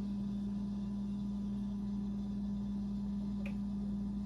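A steady low hum holding one pitch, with a faint click about three and a half seconds in.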